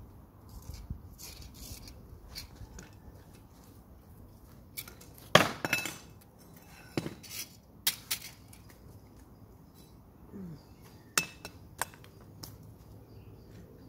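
Small metal hand garden fork working the soil around a young rose plant: faint scratching, broken by several sharp strikes of metal on soil and grit. The loudest strike comes about five seconds in.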